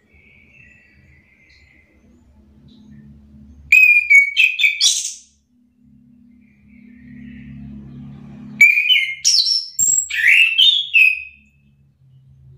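Chestnut-capped thrush singing: two loud bursts of rapid, varied whistled notes sweeping up and down, about four seconds in and again about nine seconds in, with faint soft warbling between them.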